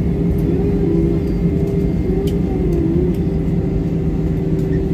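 Steady cabin noise inside a jet airliner rolling along the runway after landing: the deep rumble of engines and wheels with a constant low hum.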